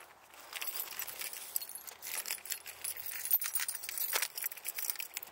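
Car keys jangling, a run of light metallic clicks and rattles as they are handled.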